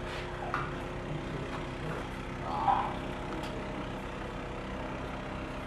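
Steady low mechanical hum, with one brief louder sound about two and a half seconds in.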